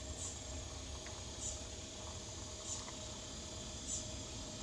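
An insect calling, a short high chirp about once every second and a quarter, over a low rumble.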